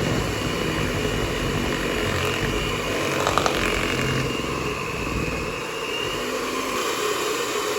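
Electric kitchen mixer running steadily as it beats a thick cake batter, with a couple of brief clicks about three seconds in.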